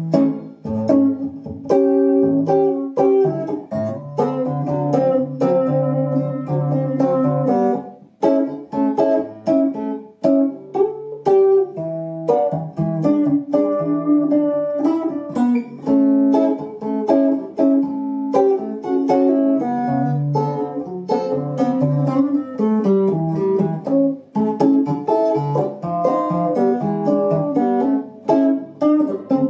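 A 1980s two-knob Fender Stratocaster electric guitar played on its neck pickup with the tone control turned fully down: a continuous run of picked notes and chords, warm and low-heavy in tone.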